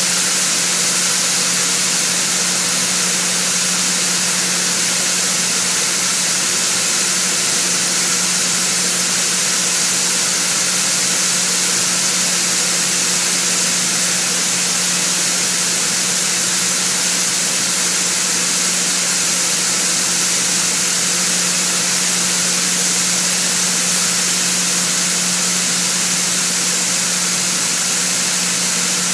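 Steady, loud machinery noise in a grain receiving pit: a constant hum under a strong hiss. Shelled corn runs out of a hopper-bottom trailer's gates into the grated pit.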